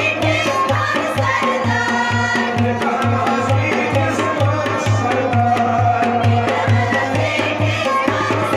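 Kashmiri folk song: a man singing over a tumbaknari clay-pot drum and a small hand drum that keep a steady beat of about two to three strokes a second.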